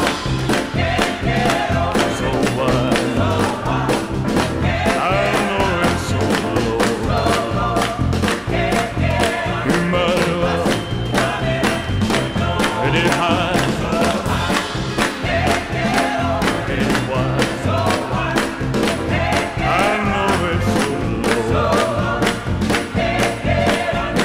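Up-tempo gospel song with singing, backing choir and a steady beat.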